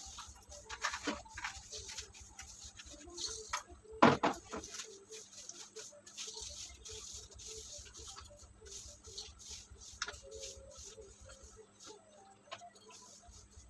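Hand broom sweeping a cement floor: scattered bristle swishes and scrapes, with one louder knock about four seconds in.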